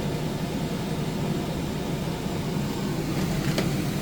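Furrion Chill Cube 18,000 BTU rooftop RV air conditioner running on turbo mode with its ceiling dump vent open: a steady rush of air over a low hum.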